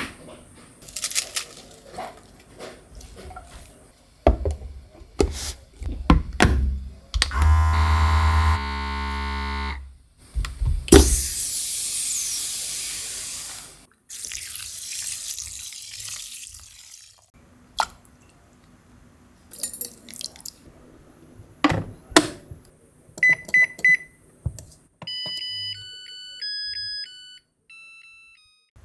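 Kitchen sounds while cooking: knocks and clicks of utensils and containers, a steady appliance hum for a couple of seconds, a few seconds of rushing water-like noise, then a short tune of electronic beeps from a kitchen appliance near the end.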